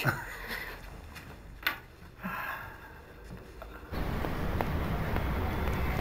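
A few faint, brief sounds in a quiet room, one a sharp sniff-like breath, then from about four seconds in, steady city street noise: a constant low traffic rumble and hum.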